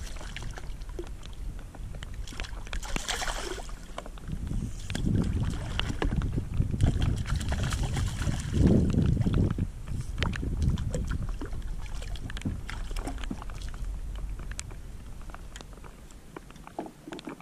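Water sloshing and lapping against a plastic kayak hull, with wind rumbling on the microphone and scattered small knocks and clicks from the boat. The sloshing is heaviest in the middle and eases off toward the end.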